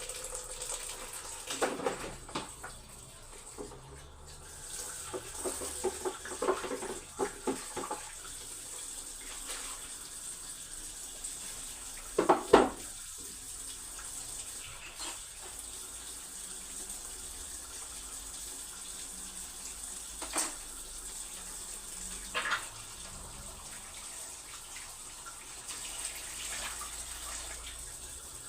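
Kitchen tap running steadily into a sink, with short clatters and knocks of things being handled in it, the loudest a sharp knock about halfway through.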